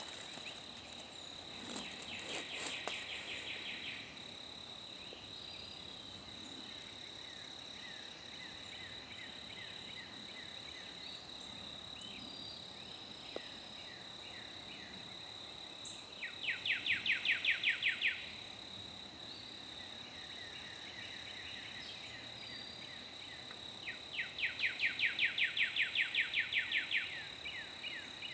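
Woodland birds singing: a rapid trill of evenly repeated notes comes three times, briefly early, then in the middle and longer near the end, with fainter chirps between, over a steady high-pitched insect drone.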